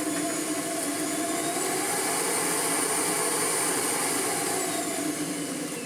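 Miele Blizzard CX1 bagless vacuum cleaner running steadily, a fine high whine over the motor and airflow, with its clogged filter housing just emptied and running freely again.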